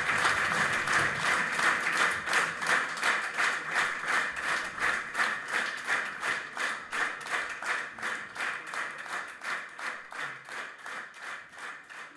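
Audience applause that settles into steady rhythmic clapping in unison, fading away near the end.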